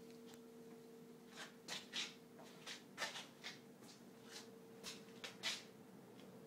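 Hunter Villa Series ceiling fan's three-speed motor running on medium with a faint steady hum, over irregular soft ticks and rustles.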